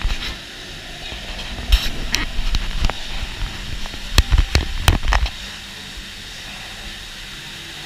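A run of sharp knocks and thumps, about a dozen, between about two and five seconds in, over a steady hiss.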